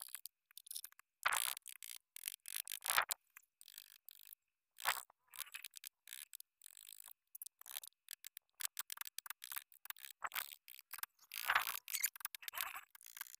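Hand chisel cutting and scraping into wood in short, irregular strokes, with a few louder cuts among them, as the outline of a carved design is pared out.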